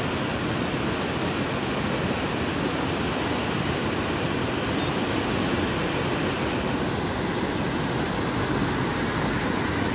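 River in flood, muddy water rushing fast below a bridge: a steady, even rushing noise.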